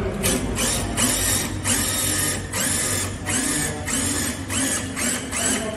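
Cordless drill whirring in short, repeated spurts of the trigger, about two a second, with its bit working into a metal door frame.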